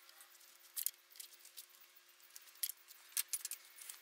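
Metal wrench clicking against the power steering pump's high-pressure line fitting as it is worked loose: a few faint, sharp clicks, several close together near the end.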